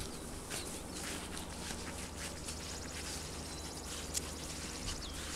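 Shih Tzu puppies scampering and rustling across a grass lawn, with scattered light clicks and a few short, high chirps that slide down in pitch.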